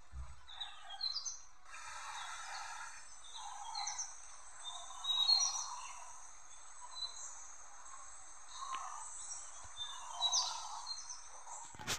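Wild birds chirping and calling, many short high chirps and whistles repeating over a steady background hiss.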